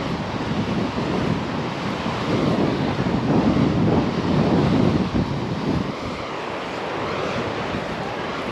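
Wind buffeting the microphone over a steady rush of ocean surf; the roar swells louder about two seconds in and eases off a little before six seconds.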